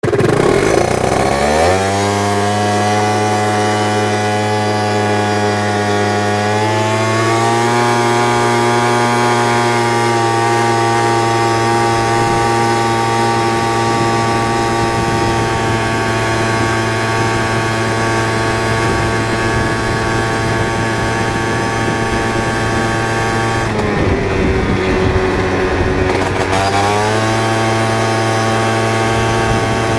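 Peugeot Jet Force 50cc two-stroke scooter engine with a tuned Laser exhaust pulling away from a standstill. Its pitch climbs over the first two seconds, steps up again about seven seconds in, then holds steady as the Speedotronic limiter caps the scooter at about 30 km/h. About 24 seconds in the pitch drops and wavers briefly, then climbs back and holds again.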